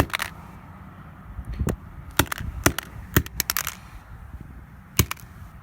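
A flip phone being struck hard on its plastic screen: about a dozen sharp cracking hits in irregular clusters, with a pause before a final pair near the end.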